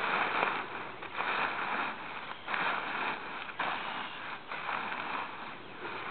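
Nylon canopy fabric of a large paraglider wing rustling and crinkling as it is pushed down into a plastic storage tub, in surges about once a second as the trapped air is pressed out.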